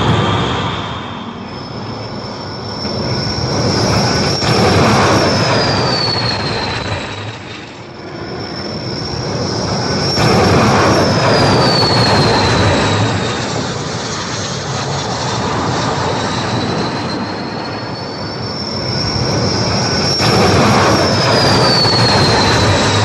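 A-4 Skyhawk jets making arrested landings on an aircraft carrier deck, three in a row. Each is a surge of jet noise carrying a high whine that holds steady, then slides down in pitch as the plane is pulled up on the arresting wire.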